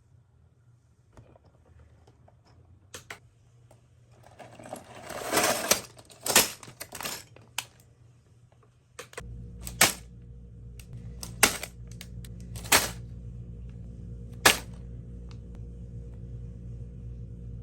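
Plastic LEGO pieces clicking and clattering, with a short burst of rustling a few seconds in. A steady low hum comes in about halfway.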